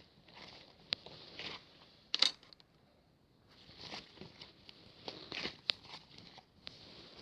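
Close handling noises: irregular crinkling and crackling with a few sharp clicks, the loudest crackle about two seconds in, then a brief lull before more rustling.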